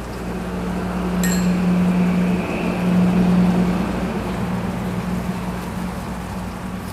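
A steady low mechanical hum over a background hiss, growing louder to a peak about three seconds in and then slowly fading.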